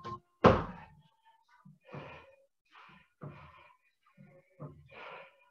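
A jump squat landing with a thud on a wooden floor about half a second in, followed by hard breathing in short puffs from the exerciser mid-workout.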